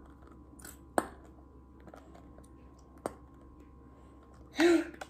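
Plastic glue bottle being squeezed, giving two sharp clicks about two seconds apart over quiet room tone; near the end a short vocal sound from the girl.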